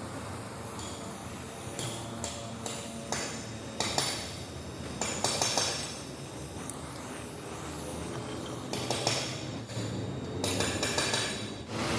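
Irregular metallic clinks and knocks, like steel tools or parts being struck and handled, over a steady low hum.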